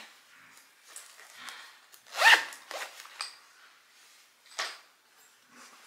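Luggage zipper being pulled in a few short strokes, the loudest about two seconds in.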